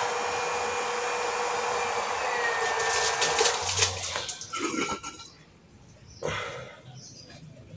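A 12 V 180 W DC water pump running and pumping water with a steady noisy rush and a faint hum, then winding down and stopping about four to five seconds in as its power is switched off. A short knock follows about six seconds in.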